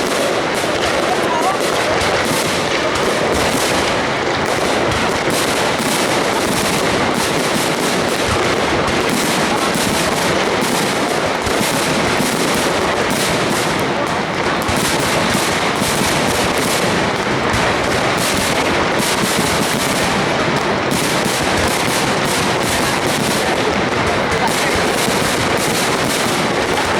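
Aerial firework shells of a high-altitude display bursting in rapid, unbroken succession, a dense continuous crackle of bangs with no let-up, over a crowd's voices.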